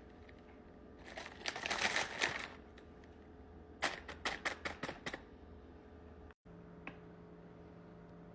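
Handling noises: a rustle lasting about a second and a half, then, about four seconds in, a quick run of about seven sharp clicks or taps.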